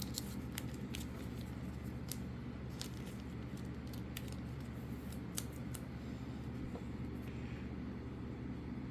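Trading cards being handled: faint scattered clicks and light rustles, a dozen or so spread irregularly, over a steady low room hum.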